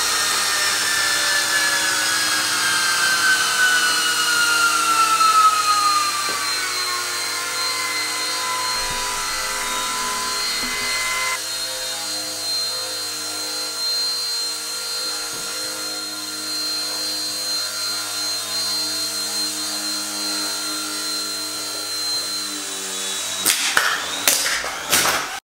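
Micro RC helicopters' electric rotor motors whining as they hover until their batteries run flat. One whine falls steadily in pitch and cuts out about eleven seconds in as the Eachine E130 comes down. The Eachine E129 runs on steadily until it lands with a short clatter near the end.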